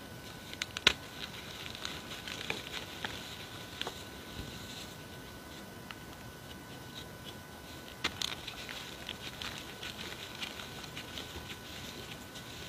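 Hands squeezing and crumbling loose gym chalk powder and reformed chalk pieces: a soft, crisp crackle with sharp crunches in two spells, the loudest about a second in and another cluster about eight seconds in.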